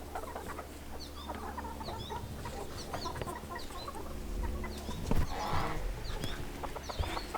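Chickens clucking softly as they forage, with many short high chirps throughout and a brief rustle about five seconds in.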